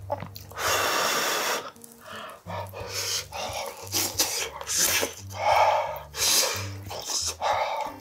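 Eating sounds of a man eating spicy braised pork and kimchi stew: several loud breathy, slurping bursts, the longest about a second in, over background music with a low bass line.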